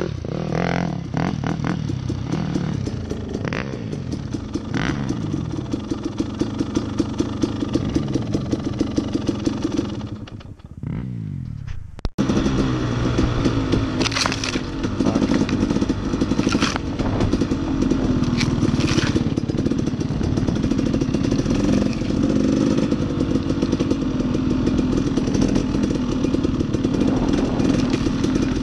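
Dirt bike engine running under load, revving up and down through the gears. About ten seconds in it drops away and cuts out for a moment, then it runs harder and steadier, with a few sharp knocks.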